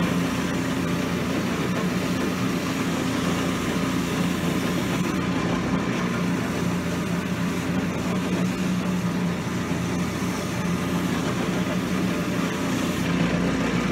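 Cobbler's shoe-finishing machine running steadily, its motor and spinning wheels giving an even hum, while the edge of a boot sole is held against a wheel to wax and polish it.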